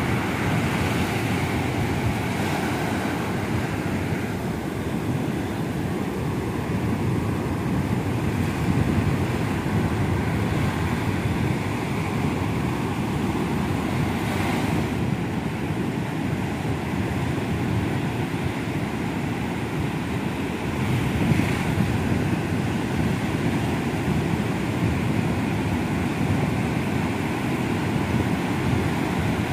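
Ocean surf breaking and washing up a sandy beach, a steady rush with a few louder wave breaks, and wind buffeting the microphone.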